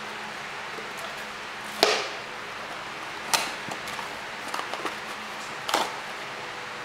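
Cardboard phone packaging being handled: a few sharp taps and scrapes as box flaps and a small white inner box are opened and moved, the loudest about two seconds in, over a faint steady hum.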